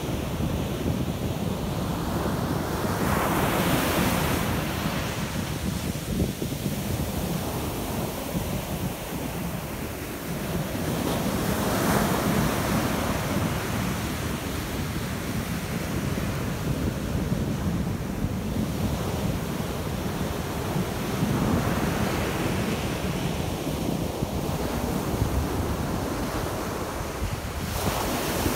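Ocean surf breaking and foaming up the beach, the noise swelling with each breaking wave every few seconds, with wind buffeting the microphone.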